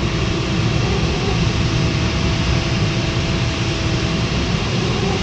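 Steady rush of airflow over a LAK17B FES sailplane, heard inside the cockpit, with a faint steady tone underneath.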